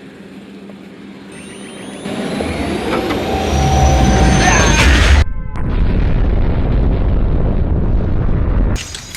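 Car engine revving hard: a rising whine over a heavy low rumble that builds and grows louder, a brief break in the whine about halfway through, then a steady loud rumble that falls away near the end.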